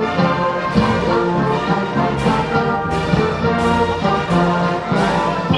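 Music led by brass instruments, playing held notes at a steady, loud level.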